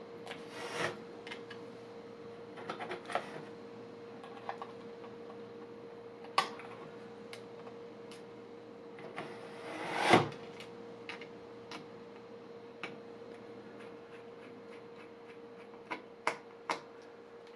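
Scattered small clicks and taps of hands handling parts inside an opened laptop, with a few louder brief scrapes and knocks, over a faint steady hum.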